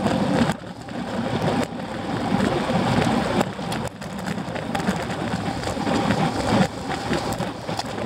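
Wind noise buffeting a bike-mounted camera's microphone as a road bike sprints at about 40 to 50 km/h, with road noise under it; the rush rises and falls in gusts.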